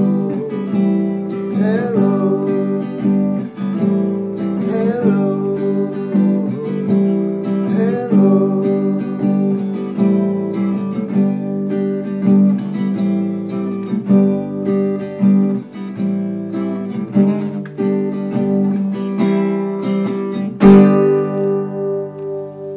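Guitar strummed steadily in repeated chords, then one last chord struck hard about 21 seconds in and left to ring out and fade.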